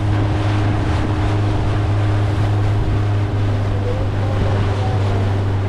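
A boat's outboard motor runs at a steady, unchanging pitch, with rushing water and wind noise over it.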